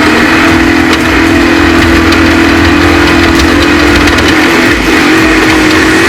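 Off-road race truck's engine running hard at high revs, its pitch holding steady with a slight dip near the end.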